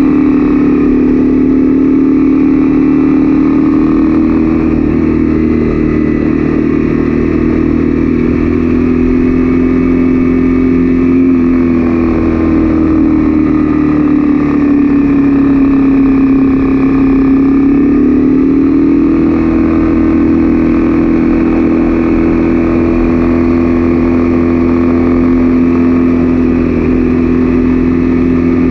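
Honda CB300F single-cylinder engine running at a steady cruise, heard from on the bike. Its revs sag about halfway through and climb back a few seconds later.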